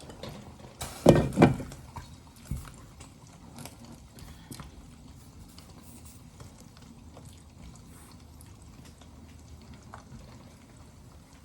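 Chicken gizzard frying gently in a pan of oil: faint, scattered crackles and spits over a low steady hiss, with a louder clatter about a second in.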